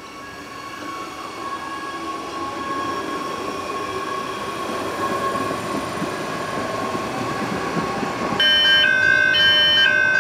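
Adelaide Metro 4000 series electric train moving through the station, its motors giving a steady whine over wheel rumble that grows louder. About eight seconds in, background music with a stepped melody starts and becomes the loudest sound.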